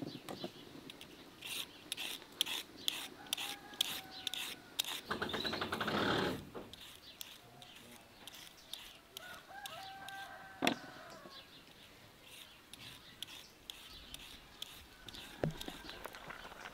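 Chickens clucking and a rooster crowing once, loudly, about six seconds in. Through the first few seconds there is the quick scrape of a hand peeler stripping carrots.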